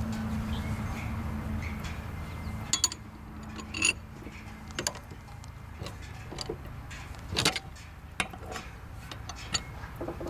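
Scattered sharp metallic clinks and knocks of wrenches and steel blade parts being handled on an upturned mower deck during a blade change. A low hum fades out in the first couple of seconds.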